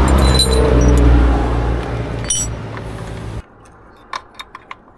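A motor vehicle's engine running loud and steady, cutting off abruptly about three and a half seconds in. Then a few light metal clinks of hand tools at the motorbike's rear wheel.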